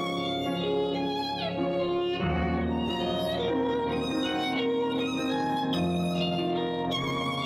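Recorded music led by a violin, playing a melody of held notes with a sliding fall in pitch about a second and a half in.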